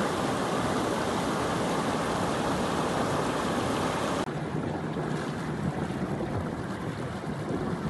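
Floodwater rushing through a washed-out road breach and over rocks, a steady loud rushing of churning water. About four seconds in it changes abruptly to a softer swirling of water around a whirlpool.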